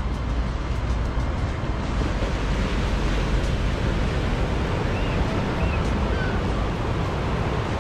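Ocean surf breaking and washing up a sandy beach in a steady wash of noise, over a low rumble of wind on the microphone.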